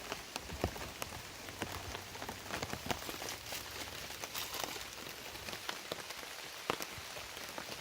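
Steady rain falling, with scattered sharp drop ticks through the hiss.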